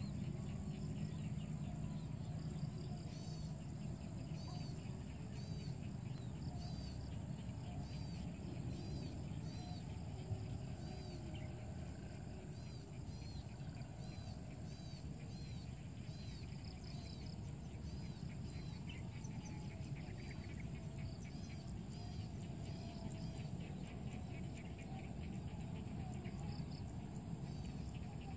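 Outdoor ambience: small birds chirping in quick repeated notes over a steady high insect drone and a low background rumble.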